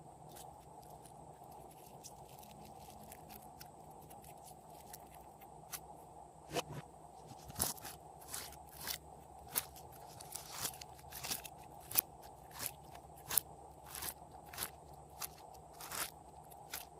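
Glossy slime being pressed and folded by hand, giving sharp wet clicks and pops. They are scattered at first, then come steadily about one and a half times a second from about halfway through.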